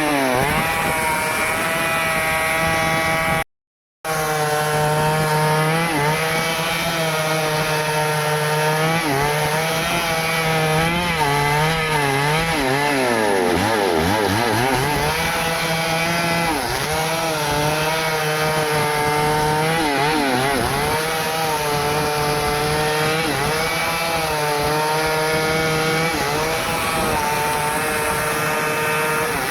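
Stihl chainsaw running at high revs while cutting wood, its engine pitch sagging again and again as the chain bites in under load, with one deep dip near the middle before it climbs back. The sound cuts out completely for about half a second a few seconds in.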